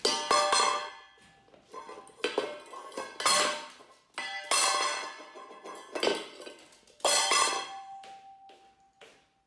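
Stainless steel dog bowl clanging against a hard floor as the dog knocks it about: a series of loud metallic clangs at uneven intervals, each ringing on after the hit.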